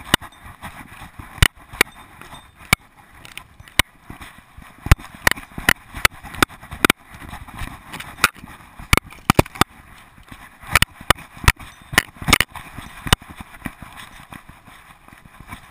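A GoPro camera worn by a moving dog, knocking and rattling irregularly in its mount as the dog walks. Sharp clicks come every second or so, thickest about eleven to thirteen seconds in, over a steady hiss.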